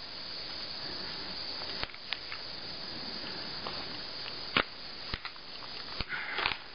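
Scattered light clicks and taps from handling a handheld PDA, the sharpest about halfway through and a short flurry near the end, over a steady hiss.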